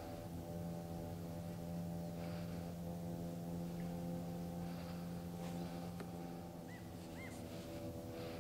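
A steady low drone of several held tones, with a few faint short bird chirps near the end.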